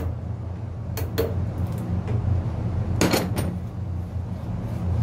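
A screwdriver and metal parts clinking on a Yanmar engine's heat-exchanger cooler cover as it is worked loose for removal: two sharp clinks about a second in and a louder clatter around three seconds. A steady low hum runs underneath.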